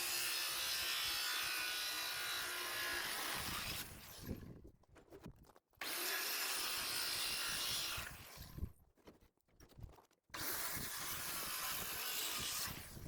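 A power tool working into wood in three runs of a few seconds each, with short pauses between.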